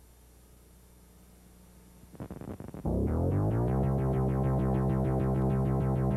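Synthesizer music. After about two seconds of near silence, a few scattered hits come in, then the music sweeps up into loud held low notes over a fast pulsing beat.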